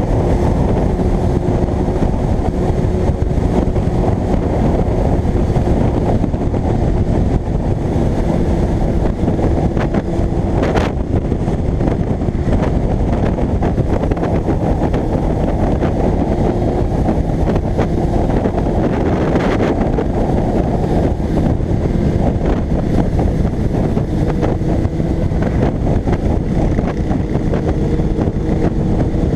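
Kawasaki ZX-6R J1's inline-four engine running at a steady cruise under heavy wind rush on the bike-mounted microphone, with a faint engine note drifting slightly in pitch. A brief click about eleven seconds in.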